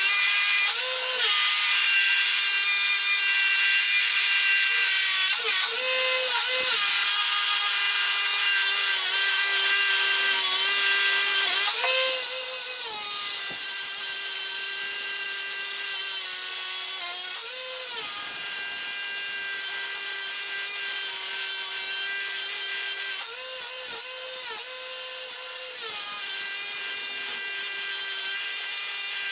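Power drill boring holes into concrete, the motor running steadily under load with a hiss from the bit grinding stone. Its pitch jumps up briefly every few seconds as the load comes off, and the sound drops a little in level about halfway through.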